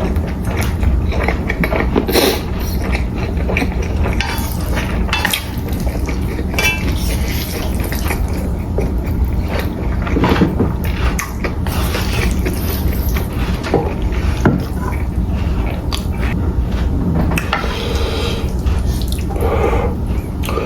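Close-miked eating sounds: wet chewing and slurping of Chapagetti noodles and pan-fried dumplings, with many small irregular clicks and taps, over a steady low hum.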